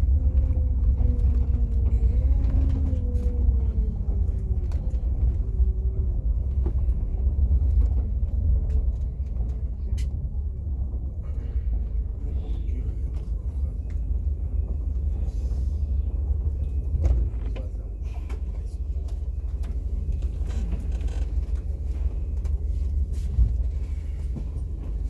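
Intercity coach's diesel engine heard from inside the cabin: a steady low rumble with a whine that falls in pitch over the first few seconds as the coach slows to a stop. It then keeps running at idle.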